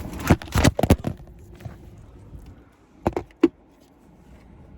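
A few short knocks and clunks: a quick cluster in the first second, then two more about three seconds in.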